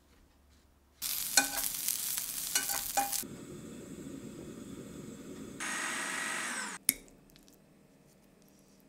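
Close-miked cooking sounds in quick cuts: after a second of quiet, about two seconds of loud sizzling with a few crackles, then a quieter steady cooking noise from a saucepan of chopped cauliflower stem and leaves, a brief hiss, and a sharp click about seven seconds in.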